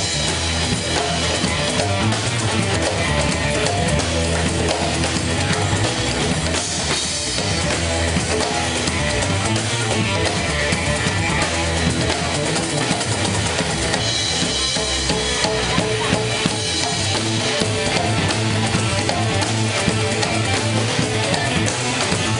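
A live band playing a steady groove: electric guitar over electric bass, drum kit, congas and hand percussion.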